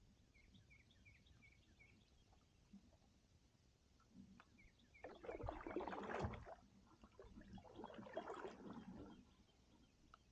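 Two kayak paddle strokes in calm water, about two seconds apart in the second half, with the splash and drip of the blade. Before them, a bird chirps faintly in quick repeated notes over an otherwise near-silent marsh.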